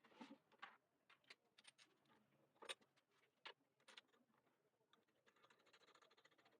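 Near silence, with faint scattered clicks and light taps, the sharpest about two and a half seconds in, and a soft hiss near the end.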